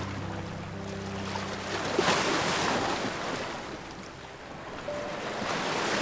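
Ocean surf washing onto the shore in slow swells, one cresting about two seconds in and another building near the end. Soft background music with held low notes plays underneath.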